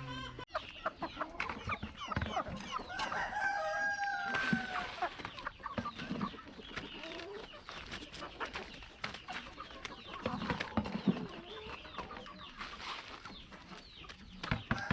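A flock of chickens clucking, with a rooster crowing once, one long call about three seconds in.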